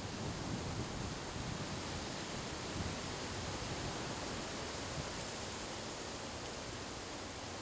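Strong wind in a windstorm: a steady, rushing hiss.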